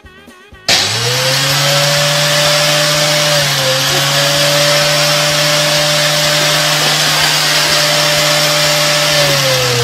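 An electric motor starts loud under a second in and runs steadily with a hum and a rush of noise. Near the end its pitch falls as it winds down after being switched off.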